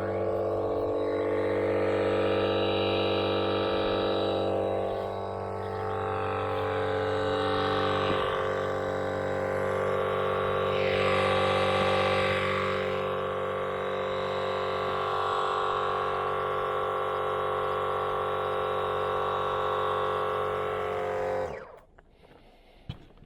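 A small motor running steadily with a droning hum, cutting off abruptly near the end.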